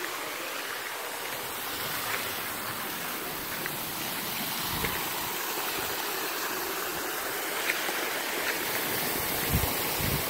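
Creek water running steadily, spilling over a low rock-and-concrete step into a pool. A few dull low thuds come about halfway through and near the end.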